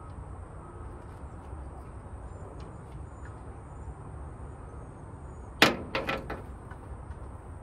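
Steady low rumble of wind on the microphone, with one sharp knock about five and a half seconds in, followed quickly by a few lighter knocks.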